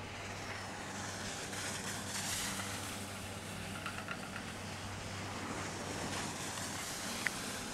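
Steady rushing outdoor noise over a low, steady hum, with a few faint clicks.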